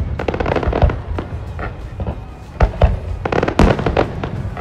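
Fireworks display: shells bursting in a rapid, irregular string of bangs, with crackling in between and the loudest bangs a little past halfway.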